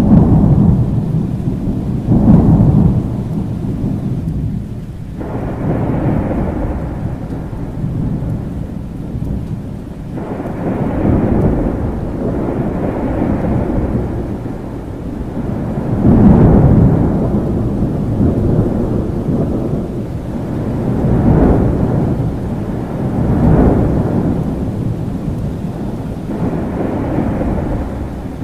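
Thunderstorm: steady rain with rolling thunder, several low rumbles swelling and fading in turn, the loudest right at the start, about two seconds in and about halfway through.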